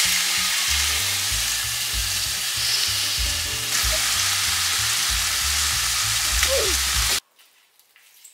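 Diced chicken frying in a stainless steel pan, a steady sizzle that cuts off abruptly about seven seconds in.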